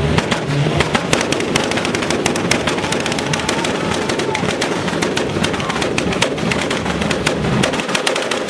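Car engine held on a two-step launch limiter, its exhaust popping and crackling in a rapid, irregular string of sharp bangs over the engine's steady running.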